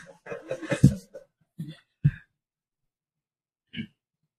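A man speaking Thai in a small room for about a second, then a long pause broken by a few short isolated vocal sounds, one near the end.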